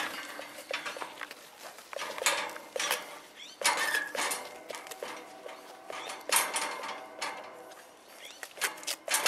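Goats biting and crunching into a halved watermelon's rind, with irregular knocks and clanks as they push against the metal pen rails and feeder.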